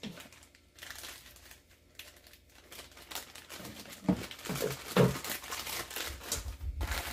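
Plastic bags of nail tips crinkling and crackling as they are handled, irregular and quiet at first, then busier about halfway in with a couple of sharper crackles.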